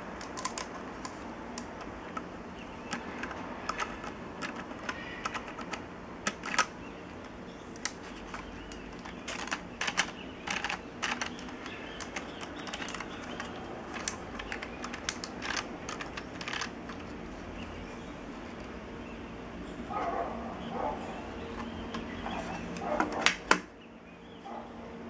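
Plastic LEGO gears and bricks clicking and rattling irregularly as the gear train of a sliding-door mechanism is turned and handled by hand, ending in one sharp knock as the model is set down on the table.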